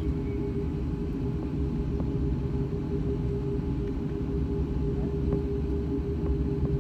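Airbus A340-600 heard from inside the cabin while taxiing: a steady low rumble and a steady hum from its four Rolls-Royce Trent 500 engines at low power, with a few faint ticks.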